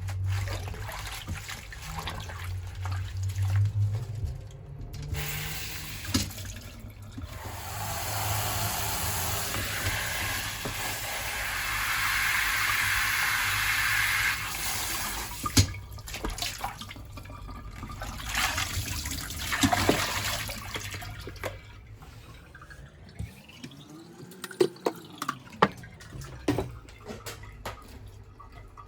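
Water running steadily for about nine seconds, with scattered clicks and knocks before and after.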